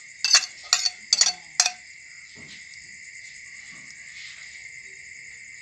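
A metal ladle clinks sharply four times in about a second and a half against the soup pot and plate, over a steady, high, chirring chorus of crickets that carries on alone afterwards.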